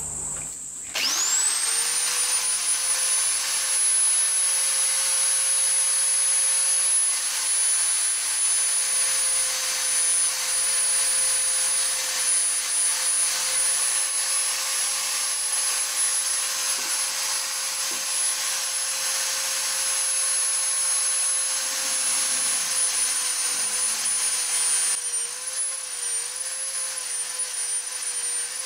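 Old AEG two-speed corded electric drill with a metal gearbox, spinning up about a second in and then running at steady speed with a high whine. Near the end its pitch wavers as the 3/16-inch bit cuts into the aluminium bar.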